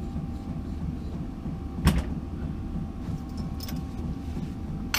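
Small metal engine parts being handled and set down on a workbench: one sharp knock about two seconds in, a few light clicks later, over a steady low background hum.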